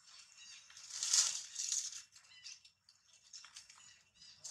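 Leaves and thin branches rustling as macaques clamber through a tree, in a loud burst about a second in, then lighter scattered crackles. Faint steady high-pitched tones run underneath.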